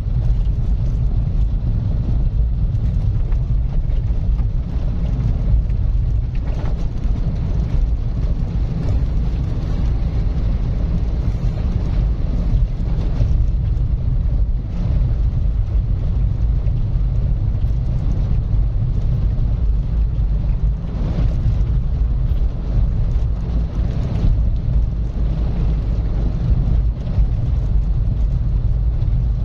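Car driving at a steady speed: constant low rumble of engine and tyre noise on the road, with no clear changes.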